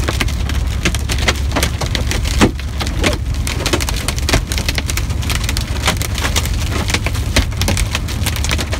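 Hail and rain pelting the windshield and cab of a moving semi-truck: a dense, irregular patter of sharp hits over the steady low drone of the truck on the road.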